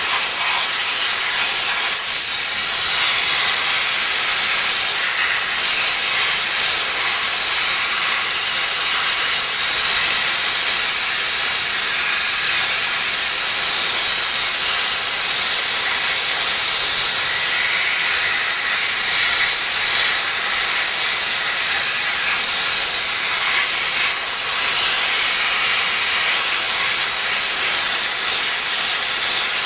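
Weidner dry steam cleaner jetting steam from its lance onto a forklift's wheel and steering parts: a loud, steady hiss with no breaks.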